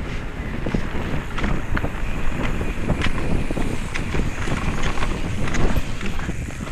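Specialized Kenevo mountain bike descending a rough dirt trail: a continuous rumble of tyres over the ground mixed with wind on the microphone, and frequent sharp clatters and knocks from the bike over bumps.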